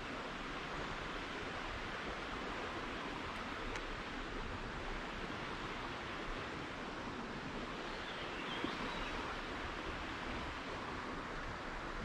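Steady rush of a shallow creek flowing over rocks.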